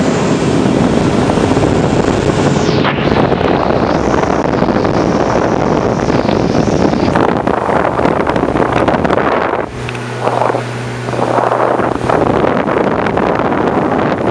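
Small speedboat under way: its engine running steadily under wind buffeting the microphone and water rushing past the hull. About ten seconds in, the wind noise drops for a moment and the low engine hum stands out.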